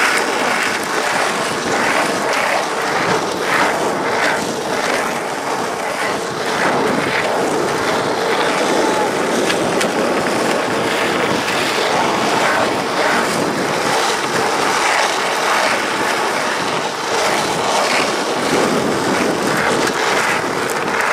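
Skateboard wheels rolling over rough asphalt: a steady, even rolling noise.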